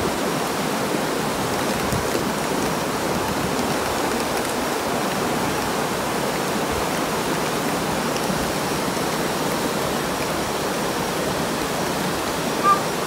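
Muddy water rushing steadily through the breach it is eroding in a small earthen landslide-dam model, a continuous rushing flow carrying soil and gravel.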